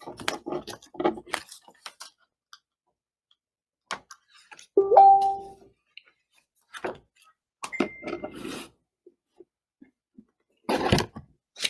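Scattered small clicks and rustles of things being handled, with one short, clear two-tone notification chime about five seconds in, and a faint thin beep around eight seconds.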